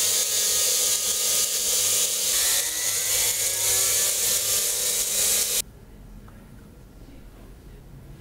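Small pen-style rotary tool spinning a grey abrasive polishing wheel at high speed against a rusty knurled steel thumb screw, grinding the rust off; a steady high whine that wavers a little in pitch midway as the wheel bears on the metal, then stops abruptly about five and a half seconds in.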